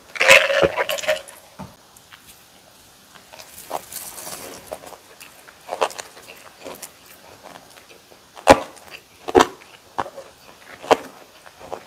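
Close-miked eating sounds of bossam and kimchi: a dense, loud bite-and-chew burst in the first second, then quieter chewing with a few sharp mouth clicks spaced a second or more apart.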